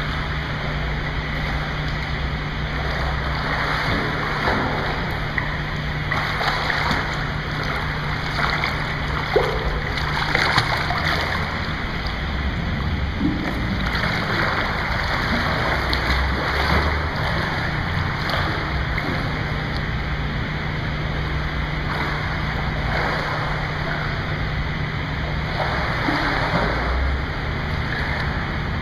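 Swimming-pool water splashing and sloshing continuously as a person wades and swims through it, swelling louder several times.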